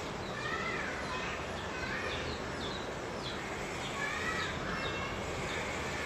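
Birds chirping, short rising-and-falling calls every second or so, over a steady background noise.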